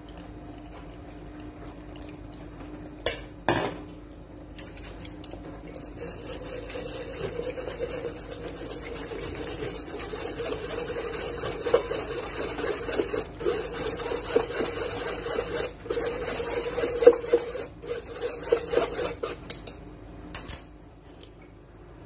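Chopsticks scraping and pressing mashed squash through a wire-mesh strainer: a continuous rasping scrape with many small clicks against the mesh. It follows two knocks about three seconds in and stops shortly before the end.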